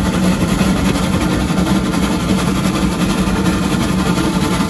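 NZR Wa-class steam locomotive Wa 165 running along the line, heard from the front of the engine: a loud, steady rumble with no separate exhaust beats standing out.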